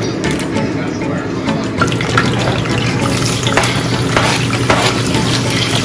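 Sliced onions sizzling in hot oil in a saucepan, stirred with a spatula.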